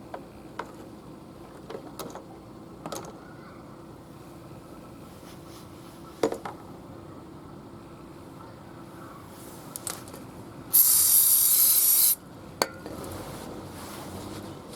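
Small clicks and knocks of tools being handled, then a single loud spray hiss from an aerosol can lasting about a second and a half, near the end.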